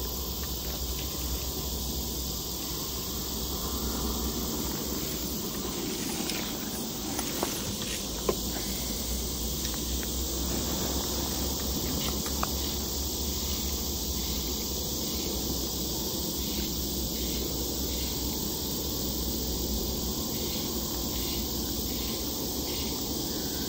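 Steady chorus of insects, an even high-pitched hiss, with a few faint clicks scattered through it.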